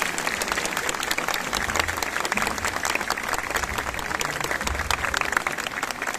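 A large crowd applauding, many hands clapping at once in a dense, steady mass.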